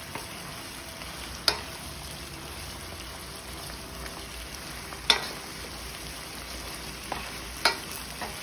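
Shrimp in garlic sauce cooking gently in a nonstick frying pan, a steady soft sizzle, while a wooden spoon stirs them. The spoon knocks sharply against the pan several times, the loudest about five seconds in.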